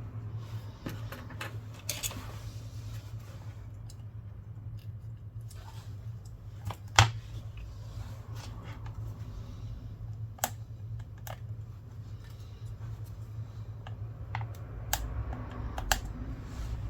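Scattered light clicks and taps of small repair tools on the internals of an opened iPad, as a flex cable connector is pried off; one sharper click about seven seconds in. A steady low hum runs underneath.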